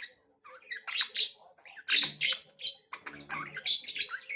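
Several budgerigars chirping and chattering: a dense, irregular run of short, high chirps.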